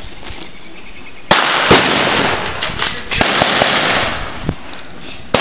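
Blank gunfire: a sudden volley of sharp shots about a second in, several more cracks over the next two seconds, and one more shot near the end.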